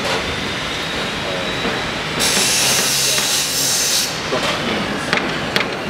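A loud hiss that starts abruptly about two seconds in and cuts off about two seconds later, followed near the end by a few sharp clicks.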